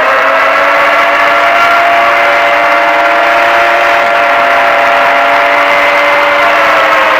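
Siren sounding a loud, steady wail made of several tones, beginning to slide down in pitch near the end.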